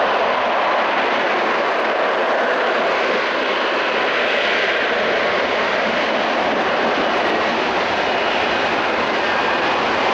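Loud, steady jet noise from the F-35B Lightning II's F135 afterburning turbofan during its flying display. A faint high whine sits under the noise in the second half.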